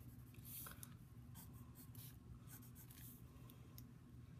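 Pencil drawing on lined notebook paper: faint, short scratching strokes with brief pauses between them, over a low steady hum.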